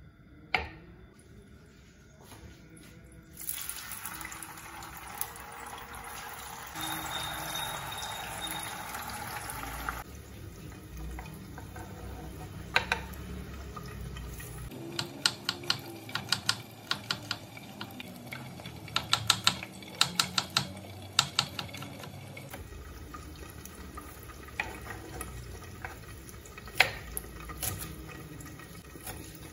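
Tofu frying in hot oil, a loud sizzle that starts about three seconds in and eases off about ten seconds in. Then a knife chops on a wooden cutting board in quick runs of several strokes a second.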